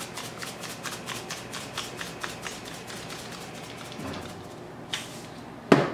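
Sea salt being shaken from a shaker canister, a fast irregular patter of small ticks for about the first three seconds. Two louder clicks come near the end, the second the loudest.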